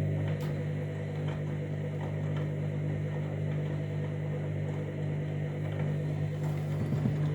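Washing machine running its main wash with a very large load: a steady motor hum as the drum turns, with a few faint clicks.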